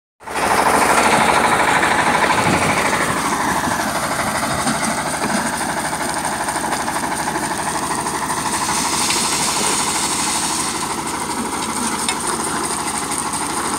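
Coal crusher running under load: a loud, continuous mechanical clatter with a rapid rattle running through it. It is a little louder for the first couple of seconds, then holds steady.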